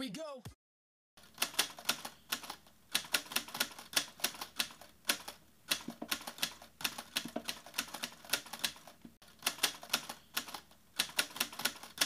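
Typing sound effect: quick runs of sharp key clicks, several a second, broken by short pauses, starting about a second in.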